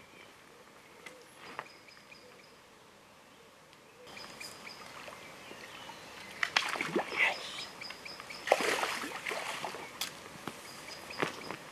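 Tench splashing in a landing net at the water's edge, with a run of sharp splashes and sloshing in the second half as the net is worked in and lifted out of the lake. Faint bird chirps can be heard in the quieter opening seconds.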